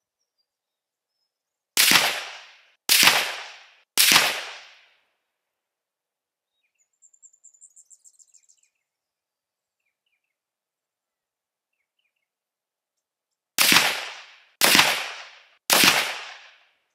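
Six .223 Remington rifle shots from an Enfield Arms Genesis One rifle, fired as two three-shot groups. Three shots come about a second apart early on, and after a long pause three more follow near the end, each ringing out briefly after the crack.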